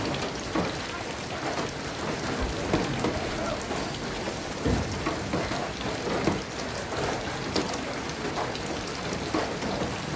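Steady rain falling, with many separate drops heard as small clicks close by.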